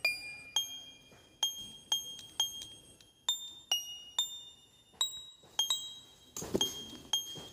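Background music: a simple melody of bell-like struck notes, about two a second, each ringing out and fading. A brief rustle of noise about six and a half seconds in.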